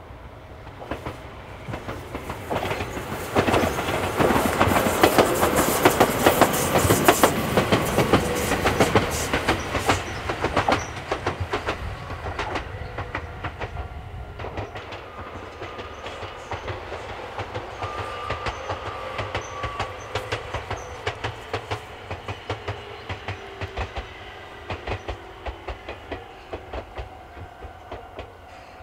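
Electric train running over jointed track, wheels clicking rapidly over the rail joints. The sound swells and is loudest for several seconds a few seconds in, then settles into a steadier run of rhythmic clicks with a faint whine slowly falling in pitch.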